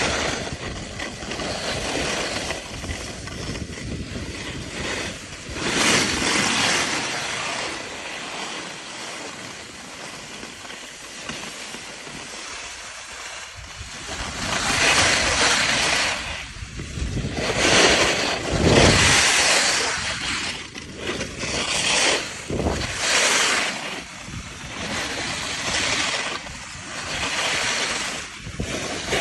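Skis sliding and scraping over packed snow on a downhill run, mixed with wind rushing over the microphone. The noise swells and fades several times.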